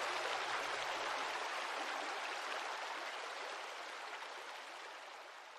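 Swift, shallow creek water rushing in a steady hiss that slowly fades away.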